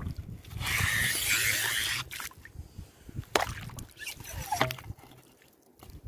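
A homemade PVC suction tube is pulled up out of wet sand under shallow seawater, giving about a second of loud sucking hiss as it draws in water and sand. A few short knocks and splashes follow.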